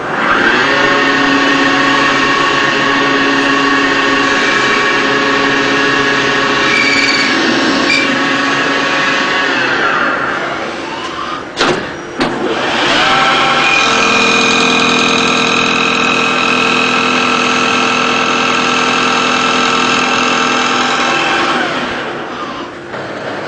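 CNC polygon lathe running two machining cycles. Each time the spindle speeds up to a steady whine of several tones, holds for about nine seconds and winds down. A short click comes between the two runs, about halfway through.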